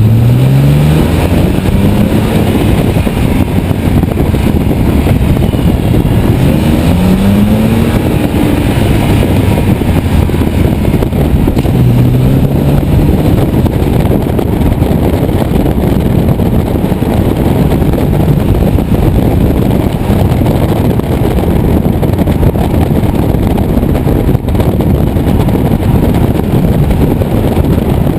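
BMW 330i's 3.0-litre straight-six accelerating, its pitch rising in steps in the first dozen seconds, then running steadily at speed under heavy road and wind noise.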